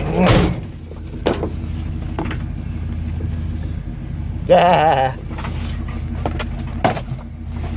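A 1986 Chevy C20 pickup's engine idling steadily. A few sharp clicks come over it, and a brief louder sound with a wavering pitch comes about halfway through.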